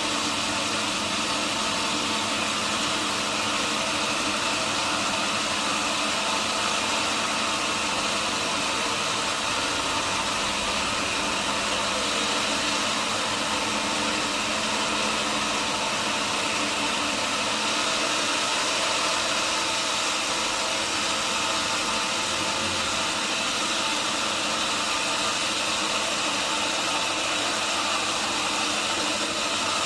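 Sawmill machinery running steadily, a constant engine-like hum with a strong hiss over it and no change in pitch or level.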